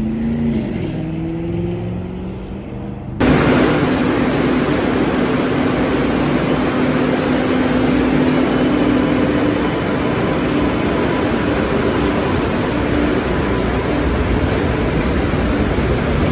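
A vehicle running: a low engine note rises at first. About three seconds in it cuts suddenly to a louder, steady rushing noise with a constant low hum.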